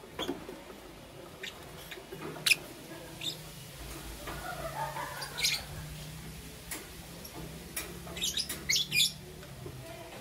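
Lovebirds giving short, sharp, high-pitched chirps and squawks at scattered moments, with a quick cluster of calls near the end. A faint low steady hum runs underneath.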